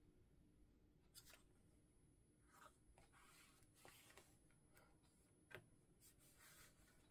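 Near silence, with faint scattered paper rustles and light taps as fingers press a glued paper pocket flat onto a journal page; one slightly sharper tap comes about five and a half seconds in.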